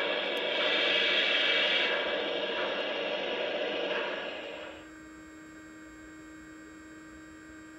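O-scale model PRR T1 Duplex steam locomotive running, a steady hissing rumble that stops abruptly about five seconds in, leaving a faint steady electrical hum.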